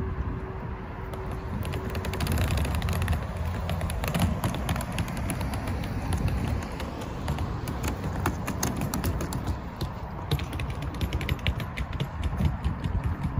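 City street sounds: a steady low rumble with a run of many small sharp taps and clicks through the middle.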